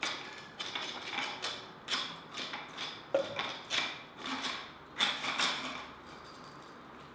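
Hand pepper mill set to a coarse grind, cracking peppercorns in a run of gritty twists at about two a second that stop about six seconds in.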